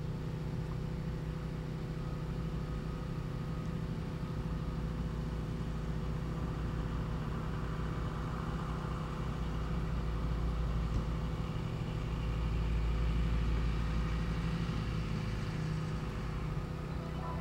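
Low, steady rumble of an engine running at idle.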